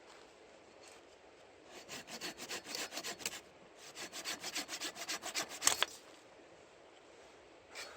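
Small hand saw cutting a stick of firewood for kindling: two runs of quick back-and-forth strokes, the second ending in one sharper, louder stroke.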